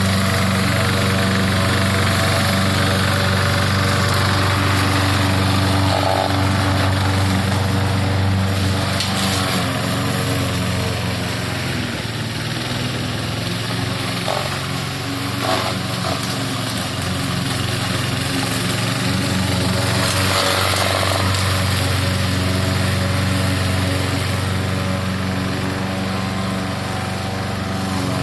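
Lawn mower running steadily, its engine and blade giving a constant hum with a slight dip in level midway.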